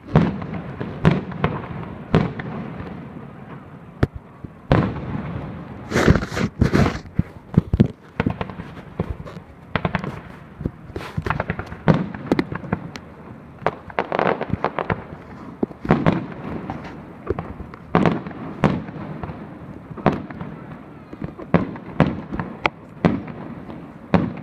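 Aerial fireworks display: many sharp bangs of bursting shells in quick, irregular succession, several a second at times, with a rumbling echo between them.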